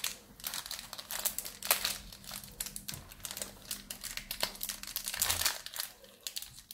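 Foil wrapper of a Pokémon card booster pack crinkling in the hands as it is pinched and worked open, a quick irregular run of crackles.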